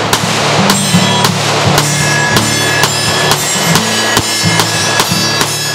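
Background music with a steady drum beat over a held, stepping bass line.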